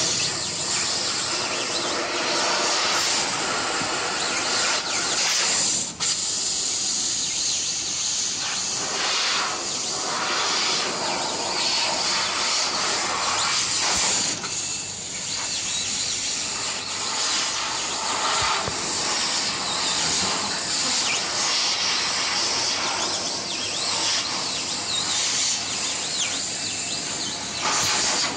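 Fiber laser cutting machine cutting sheet metal: a loud, steady hiss of assist gas jetting from the cutting head, dropping briefly about six seconds in and again around fifteen seconds.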